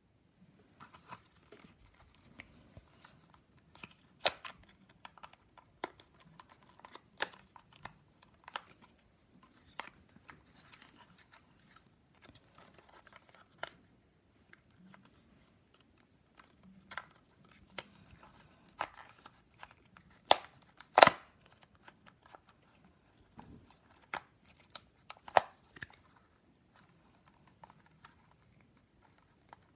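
Plastic card scraping in the seams of a DJI Mavic Air's plastic shell, with irregular sharp plastic clicks as the body clips are pried, the loudest a pair about twenty seconds in.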